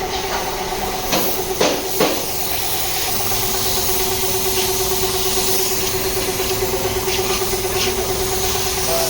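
A small motor running with a steady hum and a faint hiss, with three sharp knocks in the first two seconds.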